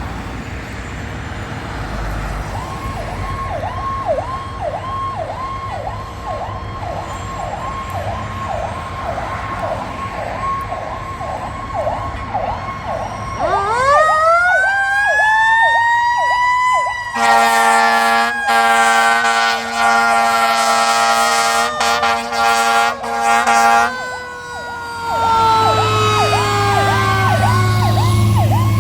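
Responding fire truck and ambulance sirens: a rapid electronic yelp, then a siren winding up to a high wail and slowly winding down while air horns blast in several bursts. Near the end the yelp comes back over a low diesel engine rumble.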